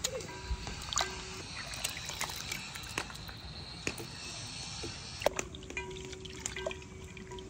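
Wet shredded cabbage and carrot being stuffed by hand into a glass jar, with brine dripping and trickling back into an enamel bucket and scattered sharp clicks against the glass.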